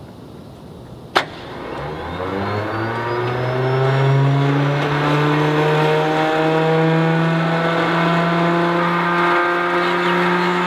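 Stinson L-1's nine-cylinder Lycoming R-680 radial engine starting. A single sharp crack comes about a second in, then the engine note rises over a couple of seconds and settles into steady running.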